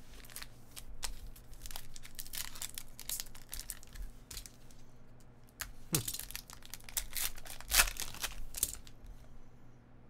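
A foil trading-card pack crinkled and torn open by hand: a run of crackling, rustling tears, loudest about six and eight seconds in.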